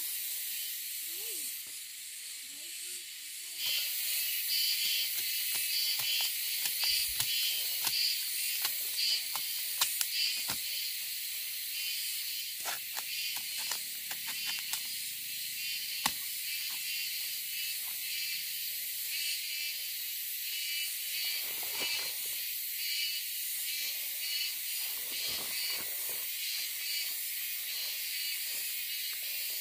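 Steady high-pitched chorus of insects, pulsing rapidly, with scattered sharp clicks and knocks; a sharper snap stands out about halfway through.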